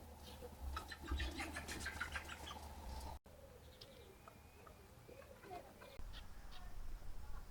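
Small birds chirping in quick runs of short notes. After a brief dropout about three seconds in come sparser chirps and low, wavering cooing calls.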